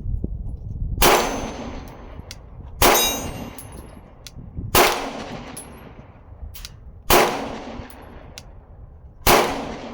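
Five pistol shots fired slowly, about two seconds apart, the first about a second in and the last near the end, each followed by the ringing clang of a struck steel target.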